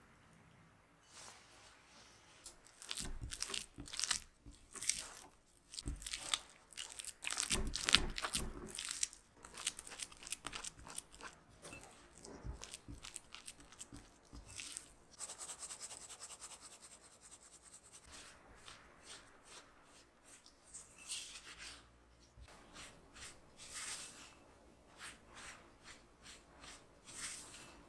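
Spatula mixing in a glass bowl: wet scraping strokes as an egg is worked into creamed butter, turning to a drier, crumblier scraping as flour is cut in to make tart dough. The strokes come irregularly and are loudest a few seconds in.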